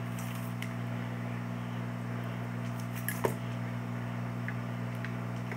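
Handheld heat gun running with a steady hum from its fan motor as it is played over a battery pack's heat-shrink wrap; a small knock about three seconds in.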